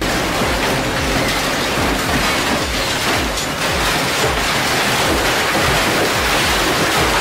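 Industrial shredder (SSI M120) tearing apart a refrigerator: steady, loud grinding and ripping of sheet metal and foam insulation as the cabinet is pulled into the cutters.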